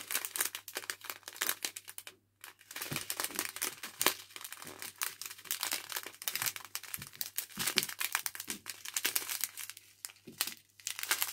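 Small clear plastic bags of diamond-painting drills crinkling as they are handled, in quick rustles with a short pause about two seconds in.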